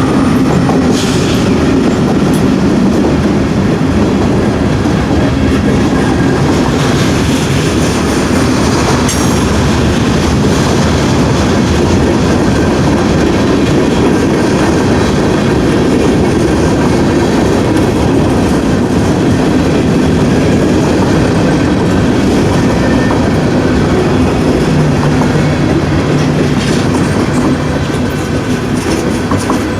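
Freight train rolling past close by, a steady loud rumble with wheels clacking over the rails.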